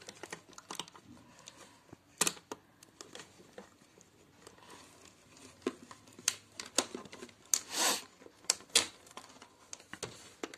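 Thin clear plastic container being handled while a wire and metal strip are fitted through a hole in its side: irregular crinkles and sharp clicks of flexing plastic, with a loud click about two seconds in and a longer crinkle later on.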